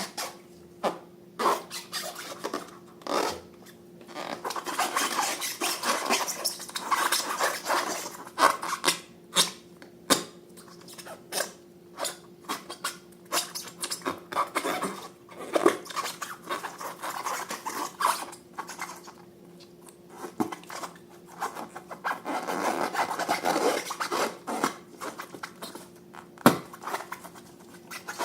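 Hands kneading and stretching slime: a run of sharp, sticky clicks and pops, with longer stretches of rubbing noise about four seconds in and again past twenty seconds.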